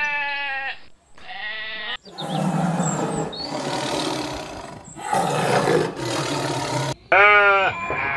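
A goat bleating, trailing off in the first second, then a second short bleat; then a lion roaring in three long, rough bursts for about five seconds; near the end a sheep gives one wavering bleat.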